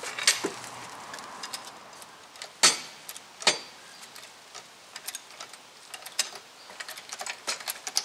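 Light metallic clicks and knocks of tools being handled while working on a car. A few sharper knocks come in the first few seconds, then a run of quicker small clicks near the end.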